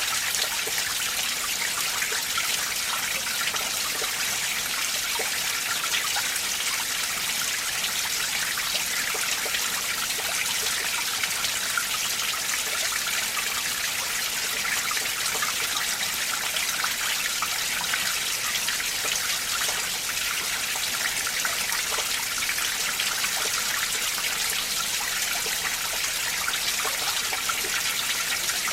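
Icy winter mountain stream running over rocks: a steady splashing rush, bright and hissy, with many small splashes and no pauses.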